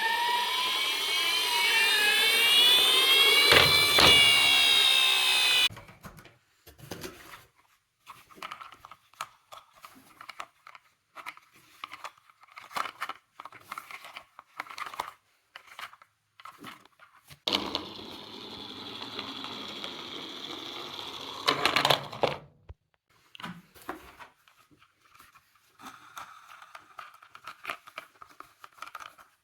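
Toy emergency-vehicle siren wailing up and down in pitch for about six seconds, then cutting off suddenly. Scattered light clicks and knocks of the small plastic toy cars follow, and a small motor whirs steadily for about four seconds past the middle.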